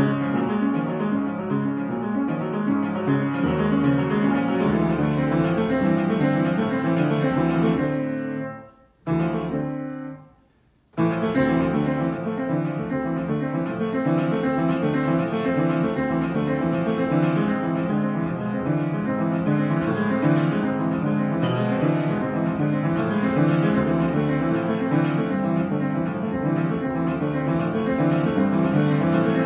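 Solo piano improvisation, a dense stream of notes played continuously. About eight and a half seconds in the playing stops, one chord is struck and left to die away, and after a second of near silence the playing starts again.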